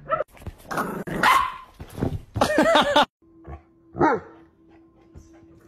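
Dog barking loudly, a rapid string of barks over about three seconds that ends abruptly. After a pause, one short falling call sounds over a faint steady hum.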